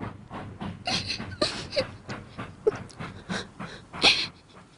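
A girl sobbing: ragged, gasping breaths with short whimpers in between, the loudest sob a little after four seconds in.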